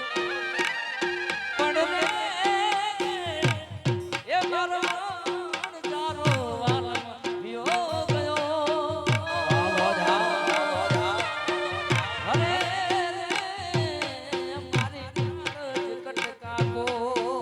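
Instrumental interlude of Gujarati folk raas music: steady hand-drum beats under a repeating short note, with a lead melody weaving ornamented, wavering lines.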